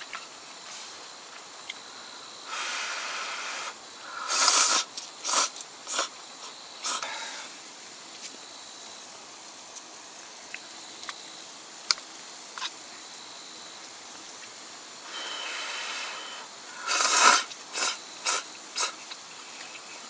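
A person slurping broth-soaked ramen noodles in two rounds: each a drawn-out slurp of about a second followed by three or four short, sharp slurps. A few faint clicks of chopsticks against a metal bowl come in between.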